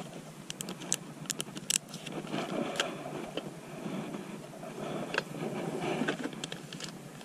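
Handling noise from gear on a kayak: a clear plastic zip bag crinkling and small plastic items being rummaged, with a run of sharp clicks and taps in the first couple of seconds and another click about five seconds in.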